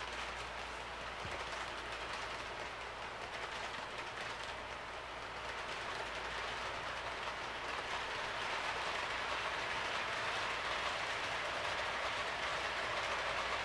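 Tenshodo HO-scale model of a JR 185 series electric train running past along the track: a steady rolling, whirring noise from the model's wheels on the rails and its drive, growing a little louder from about halfway through.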